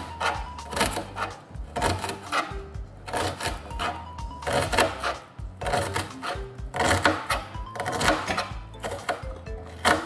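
Kitchen knife chopping a red onion, the blade tapping quickly and repeatedly on the cutting surface in uneven runs, over background music.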